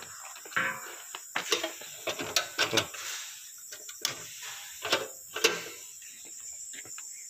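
Crickets chirping steadily in the night background, with scattered short knocks and scuffs from someone walking and handling things.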